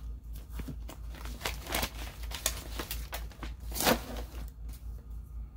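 Paper rustling and handling noise: a string of short crackles and scrapes, the loudest about four seconds in, over a low steady hum.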